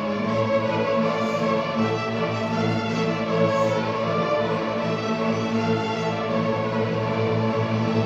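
Orchestra playing live, its violin section bowing long, held notes.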